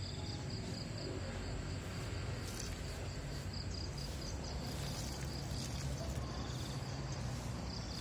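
Crickets chirping in a steady, fast pulsing trill, over a soft even hiss.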